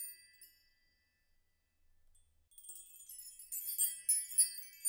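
High, tinkling chimes ringing out and fading away, then a fresh run of chimes struck about two and a half seconds in.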